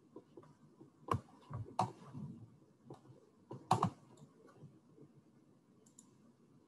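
A few scattered clicks and taps on a computer keyboard, the loudest a little under four seconds in.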